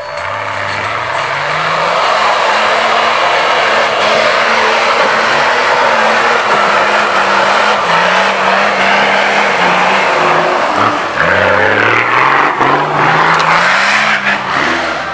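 Nissan Patrol 4x4's engine revving hard as it claws up a steep dirt slope with its wheels spinning in loose earth, under a loud rushing noise. The pitch rises at the start, eases off around the middle and climbs again near the end.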